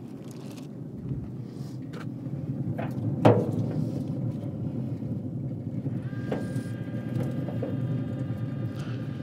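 Handling of a rack of pork spare ribs on the metal grates of an open pellet grill: a few light knocks and one louder clunk about three seconds in, over a steady low rumble. From about six seconds a faint steady high whine comes in.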